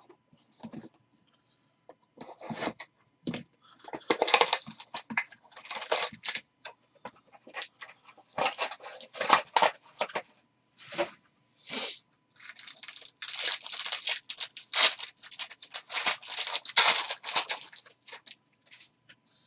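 Foil trading-card pack wrapper torn open and crinkled by hand, in irregular crackling bursts.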